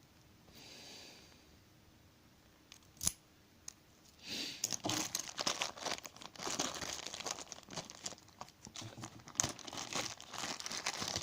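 Wrapping being crinkled and torn as a lock is unwrapped from its packaging. A single sharp click comes about three seconds in, and from about four seconds in there is continuous crackly crinkling and rustling.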